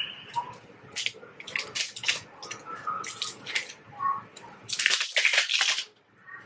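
Small cardboard box of an eyeshadow palette being handled and opened: a string of short, irregular rustling and scraping noises, busiest about five seconds in.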